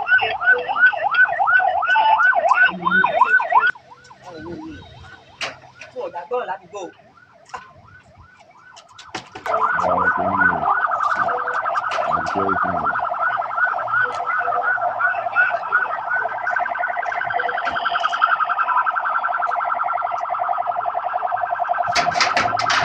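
Electronic siren yelping in quick rising sweeps; it cuts out after about four seconds and comes back about nine seconds in as a fast warble that keeps going. A metallic clatter near the end.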